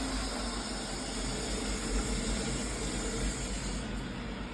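Steady rushing hiss with a low rumble: water flowing through the reopened cold-water supply into the gas water heater's tank as it refills after flushing. The highest part of the hiss drops away near the end.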